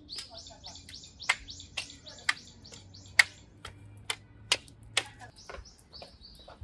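Small birds chirping in quick high notes, over a series of irregular sharp clicks or taps that are the loudest sounds.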